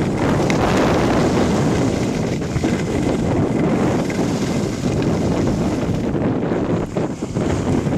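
Wind rushing over the microphone of a camera carried by a moving skier: a loud, steady buffeting rumble, dipping briefly about seven seconds in.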